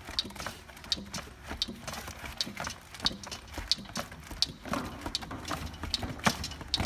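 Hand-pumped hydraulic pallet jack raising a load on its weighing forks. The pump mechanism gives a regular click about every 0.7 seconds, one for each stroke of the handle.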